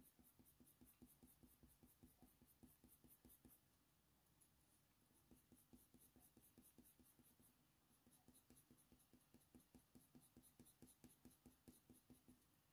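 Faint, quick scratching of a Faber-Castell Polychromos colour pencil on hot-press watercolour paper, in short strokes about four or five a second, with a pause about four seconds in.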